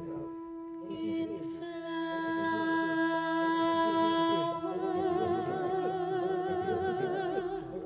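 Live contemporary ensemble music with electronics: over a steady sustained drone, a long held note, then a female voice singing a wordless note with wide vibrato from about halfway through.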